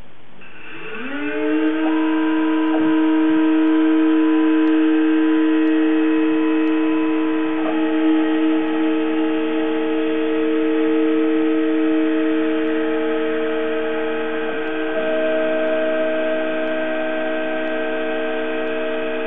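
Spindle motor of a Roland JWX-30 wax milling machine spinning up with a rising whine about a second in, then running at speed as a steady whine of several tones as machining of the wax block begins. Its pitch shifts a little about eight and fifteen seconds in.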